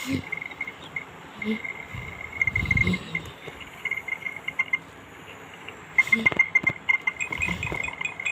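Crickets chirping in rapid runs of pulses at one high pitch, with a few soft low thuds mixed in.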